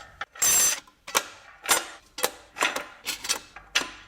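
Clutch plates of a ZF 6HP26 automatic transmission clinking as friction discs and steel plates are stacked one by one into the clutch pack: sharp metallic clicks about every half second, after a brief rustling burst about half a second in.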